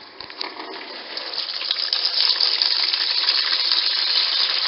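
Wash water draining from a portable twin tub washing machine's drain hose and splashing into a pail, a steady gushing that builds up about a second in.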